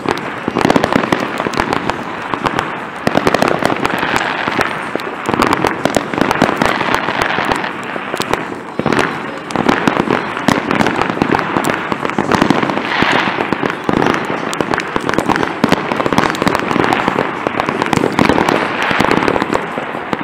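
Fireworks going off in a continuous barrage: many crackling and popping bursts overlapping, with no break.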